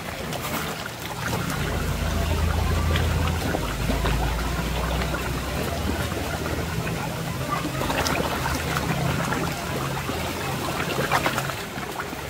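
Koi splashing and slurping at the water's surface as they take food, with trickling water and a low steady mechanical hum underneath. The splashes come thickest about eight and eleven seconds in.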